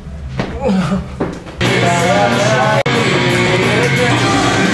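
Brief voices, then loud rock music with electric guitar starts about one and a half seconds in, with a wavering vocal-like melody over it; the music cuts out for an instant a little before halfway.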